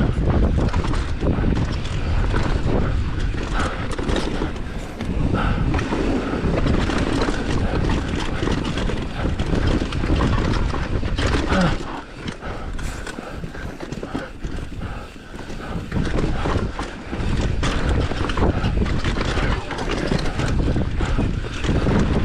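Commencal Meta AM 29 mountain bike descending a rough, rocky trail at speed: tyres rumble over dirt and rock, and the frame, chain and suspension clatter with each hit. The clatter eases for a few seconds just past the middle.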